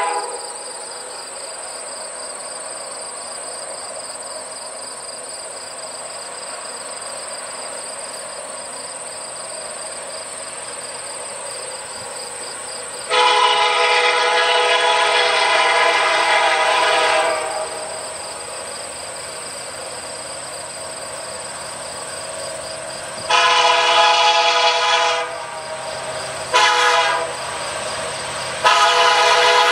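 Diesel freight locomotive's multi-chime air horn sounding the grade-crossing signal: long, long, short, long, with the locomotive running quietly between blasts. Near the start the tail of an earlier blast cuts off.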